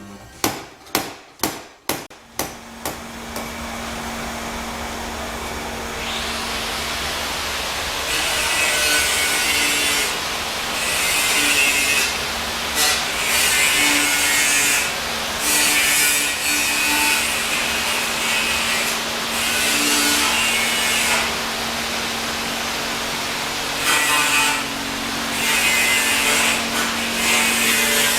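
A quick run of about seven sharp knocks, then an electric power tool running steadily and working metal bodywork in on-off passes of a few seconds each, with a harsh abrasive sound.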